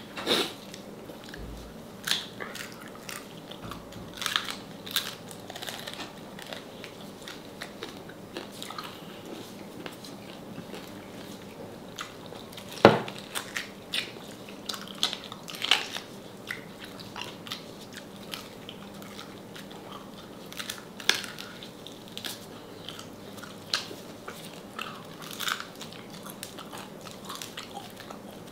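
Crunchy bites and chewing on crispy deep-fried salted pork knuckle skin, in irregular crunches with one sharp, loud crack about thirteen seconds in.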